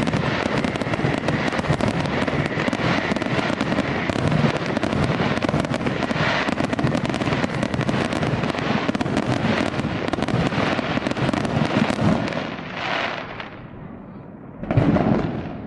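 Fireworks going off in a dense barrage of rapid crackles and pops that overlap continuously, dying away about twelve seconds in, with one more burst near the end.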